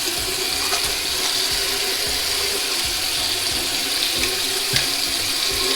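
Water running steadily from a sink tap into the basin, with small splashes as hands wash a face under it.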